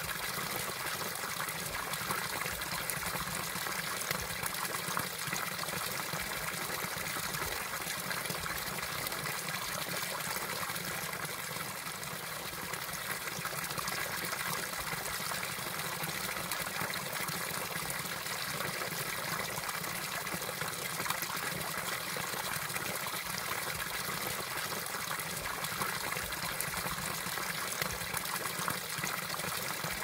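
A thin stream of water falling into a shallow pool, splashing and trickling steadily.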